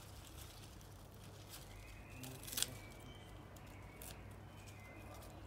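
Scissors snipping lettuce stems: one sharp snip about halfway through and a lighter one a second or so later, among faint clicks of leaves being handled.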